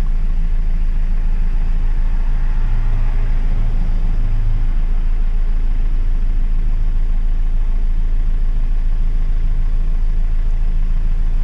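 Hyundai Verna diesel engine idling steadily, with a cylinder-3 injector circuit fault (code P0203) present.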